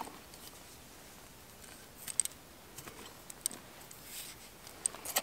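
Soft handling noises of a leather cord being threaded through a small copper pendant: a few faint clicks and ticks, mostly in the second half, over a low rustle.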